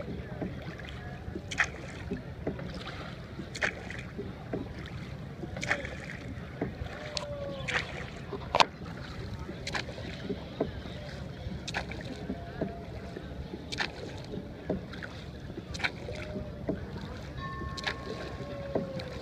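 Oars of a rowed wooden boat knocking in their oarlocks, one knock about every two seconds with the stroke, over a steady low rumble of water and wind.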